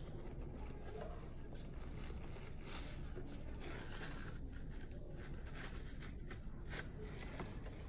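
Soft, irregular brushing and light scratching of a Chinese painting brush dabbing and stroking on paper, over a steady low room hum.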